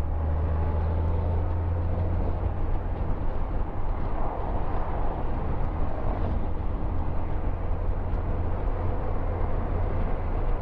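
Honda Gold Wing GL1800's flat-six engine running at a steady cruise, a low drone under a constant rush of wind on the microphone. The wind noise swells briefly about four seconds in.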